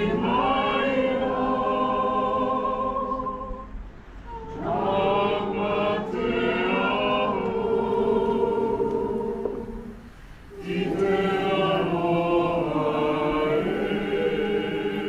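A group of opera singers singing together in long held notes. They sing in three phrases, with short breaks about four seconds and ten seconds in.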